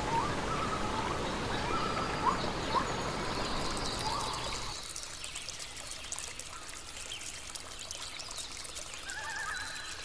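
Forest ambience: a steady rushing noise with a bird's short rising calls repeated over it. The rushing stops suddenly about halfway, leaving quieter bird calls and faint high ticking.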